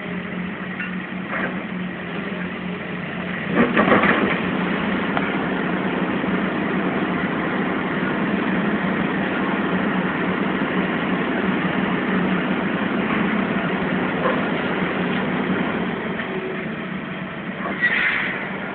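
Heavy demolition machinery running steadily, the engines of a wrecking-ball crane and an excavator. There is a short louder burst of noise about four seconds in and another near the end.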